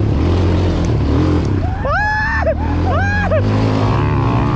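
A Yamaha quad's single-cylinder four-stroke Fazer 250 engine running steadily under throttle. Two short high-pitched whoops come about two and three seconds in.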